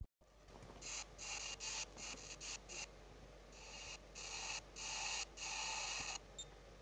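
Telepod computer data-readout sound effect: a run of short bursts of high electronic tone, uneven in length, as the analysis prints onto the screen. A brief beep follows about six seconds in.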